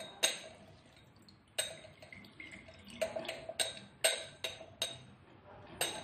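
Stainless steel hand-held lemon squeezer clinking against the rim of a drinking glass as lemon halves are pressed, a series of about eight sharp, irregular metallic clicks, with juice dripping into the glass.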